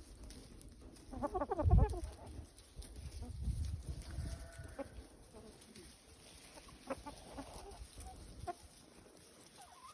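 Chickens clucking: a quick run of short calls about a second in, with a loud low thump at the same moment, then a few scattered clucks.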